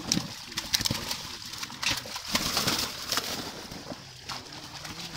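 Live fish thrashing in a mosquito-net seine held in shallow pond water, with repeated sharp splashes and steady sloshing of water.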